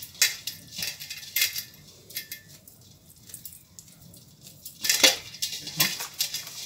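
Hands tossing and rubbing dry shredded kunafa dough with powdered sugar in a stainless steel bowl: irregular rustling and scraping against the metal, with metal bangles clinking. It eases off for a couple of seconds in the middle, then a louder flurry comes about five seconds in.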